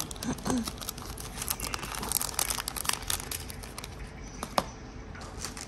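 Thin clear plastic packaging bag crinkling as it is handled, mixed with sharp clicks and taps of small plastic storage boxes; one click near the end stands out.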